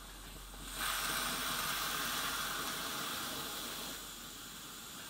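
Coleman 533 Sportster white-gas camp stove burner hissing as it warms up after priming, not yet running properly. The hiss jumps louder about a second in and eases a little near the four-second mark.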